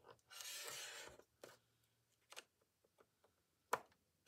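Scoring stylus drawn along the groove of a paper scoring board, pressing a fold line into patterned paper: one short scratchy stroke of just under a second, followed by a few light clicks, the sharpest near the end.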